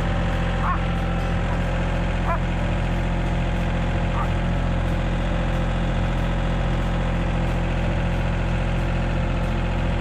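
An engine running steadily at an even speed, with a few faint short rising squeaks over it.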